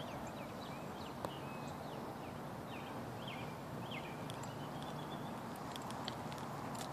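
A person's footsteps on a gravel road shoulder over a steady outdoor background. Short high chirps are scattered through the first half.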